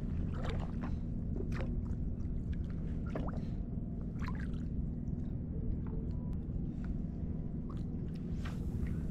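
Shallow bay water sloshing and splashing around a wade fisherman's legs, with scattered short splashes over a steady low rumble.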